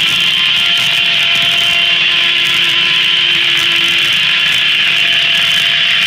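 The large blade of an 1880s steam-powered circular sawmill ripping lengthwise through a red elm log, a loud steady sawing noise with a faint hum from the blade under load.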